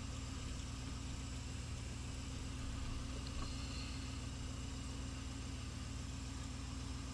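The 1983 Pontiac Trans Am's 305 small-block V8 running steadily, heard from inside the cabin as a constant low drone with a light hiss over it.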